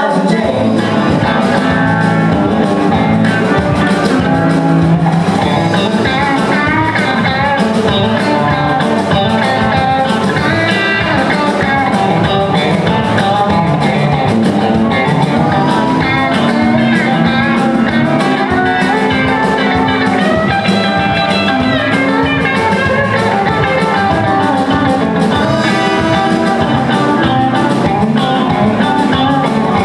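Live band playing a country-rock song at full volume: drum kit, electric guitar, bass guitar and pedal steel guitar.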